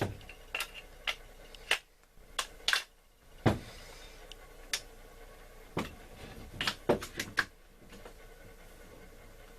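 AR-15 rifle being reassembled by hand: a series of sharp, irregular metal clicks and clacks as parts are fitted and snapped together.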